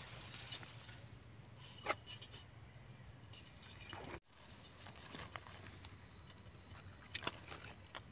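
Insects calling steadily in two high pitches, with a few crackles of dry grass and leaf litter being handled close by. The whole sound drops out for an instant a little after four seconds, then the insect calls carry on.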